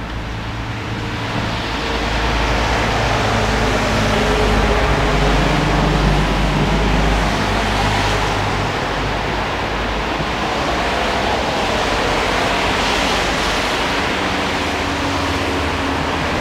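Traffic on a wet road: a steady low engine hum, with tyre hiss that swells as cars pass about eight and again about thirteen seconds in.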